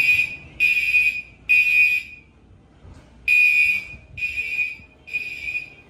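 Gentex Commander horn strobes sounding the temporal-3 evacuation signal: loud, high-pitched horn blasts in groups of three, with a pause of about a second between groups.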